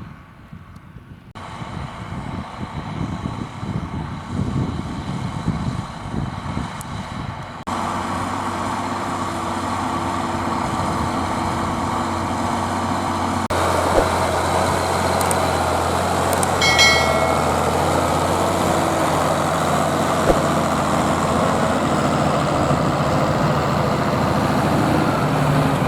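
Zetor Crystal 12145 tractor's diesel engine running steadily, getting louder about halfway through, after a stretch of uneven, fluttering noise at the start. A brief high-pitched squeal sounds a few seconds after it gets louder.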